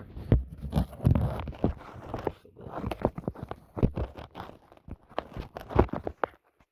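Irregular clicks, knocks and rustling of hands handling and fitting small bicycle parts, cutting off abruptly near the end.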